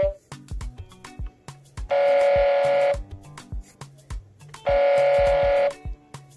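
Electronic horn sound effect from a Fast Lane Show and Go Camaro toy car's speaker: two steady honks, each about a second long, one about two seconds in and one near the end, over a looping drum beat.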